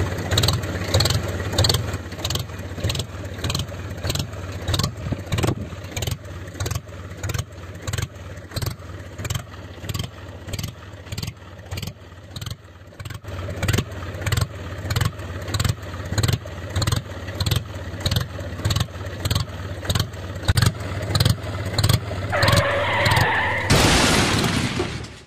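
Small engine of a DIY mini tractor running with a regular pulse about twice a second, then cutting off suddenly near the end.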